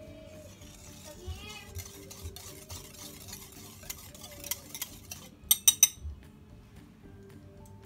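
Wire whisk stirring a dark liquid in a glass bowl, its tines ticking against the glass, then a quick run of four sharp clinks about five and a half seconds in.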